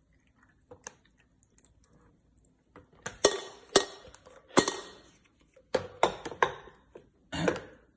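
A run of sharp clinks and knocks, about eight in all, starting about three seconds in, as the hard plastic and glass parts of a drip coffee maker are handled and set in place.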